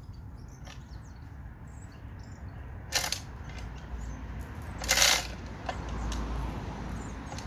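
Hand-operated chain block being worked to tension a chain and steel cable around a tree stump, with faint clinks. Two louder noisy bursts come through, a short one about three seconds in and a longer one about five seconds in.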